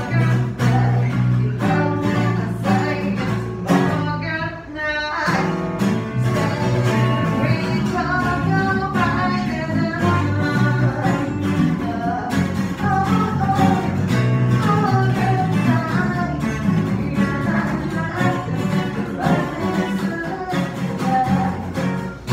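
A small band playing: electric bass and strummed acoustic guitar, with a vocalist singing over them. The music briefly drops out about four to five seconds in, then the groove picks up again.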